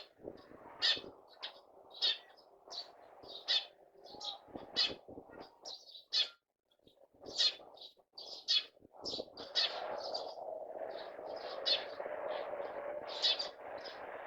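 A flock of sparrows chirping, with many short chirps overlapping one after another. Under them runs a low background noise that grows louder about ten seconds in.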